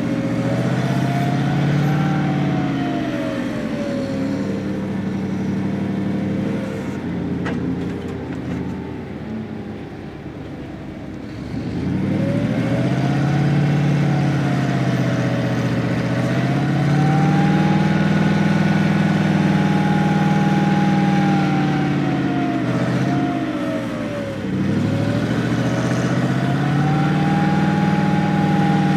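A motor vehicle engine running and revving, its pitch rising and falling slowly every few seconds. It drops back lower and quieter for a few seconds near the middle, then revs up again and holds a steady high note, with a brief dip near the end.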